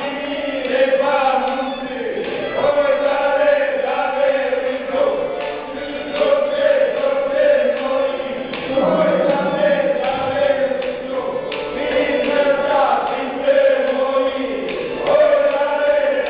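A group of voices singing a traditional Romanian folk song in unison, slow and chant-like, with long held notes.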